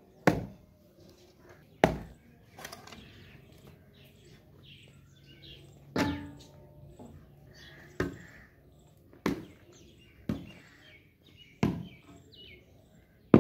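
A kahi (heavy Punjabi hoe) striking a pile of rain-hardened clay soil, about nine chopping thuds at uneven intervals of one to two seconds as the clods are broken up. Birds chirp faintly in the background.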